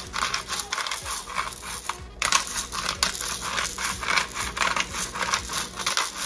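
Hand-twisted pepper mill grinding peppercorns: a rapid series of dry, crunching clicks, with a brief pause about two seconds in.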